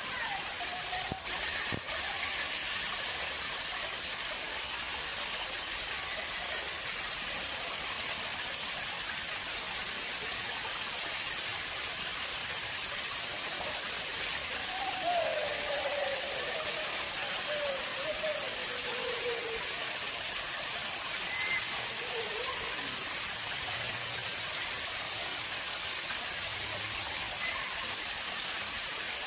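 Water flowing steadily into an artificial pond: a continuous, even rush.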